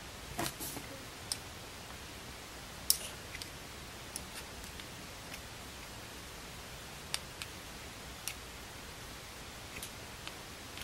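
Scattered light clicks and taps as scissors and 9 mm circular knitting needles are handled over plush yarn, the sharpest click about three seconds in, over a steady faint hiss.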